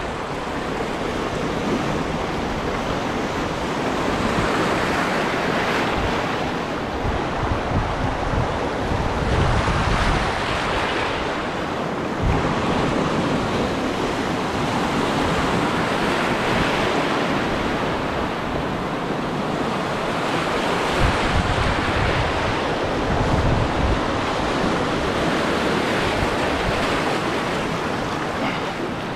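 Sea surf washing and breaking over a rocky shoreline, swelling every few seconds as each wave comes in. Wind buffets the microphone with low rumbles.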